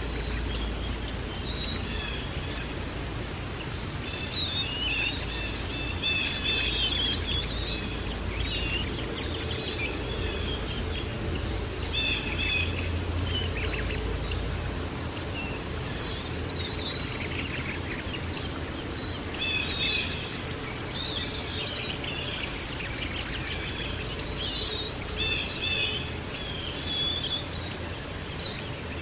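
Several small songbirds chirping and twittering in many short, high calls over a steady low background rush. The sound cuts in abruptly at the start.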